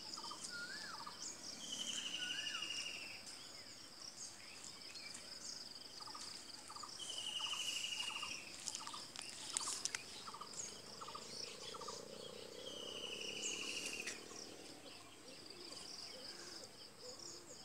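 Birds calling over a steady high insect drone. A buzzy, slightly falling trill repeats three times, about five seconds apart, with short chirps and a couple of rising whistled notes between.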